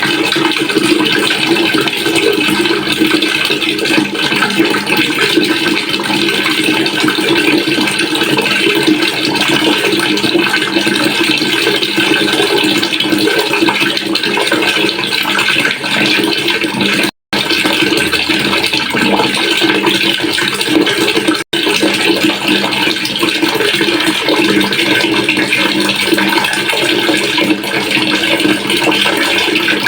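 Water pouring steadily into a pail, a continuous rushing splash. It cuts out for an instant twice, a little over halfway through.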